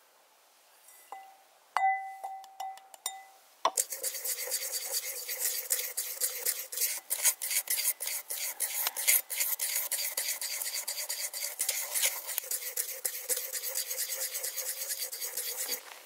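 A cleaver blade clinks against a clay bowl about five times, each clink ringing briefly. Then an implement stirs a dry spice mix in the bowl, a fast, steady scraping that stops suddenly near the end.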